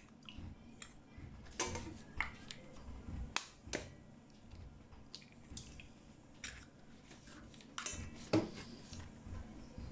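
Eggs being cracked and broken open into a stainless steel bowl: a scattered series of sharp taps and cracks, the loudest near the end.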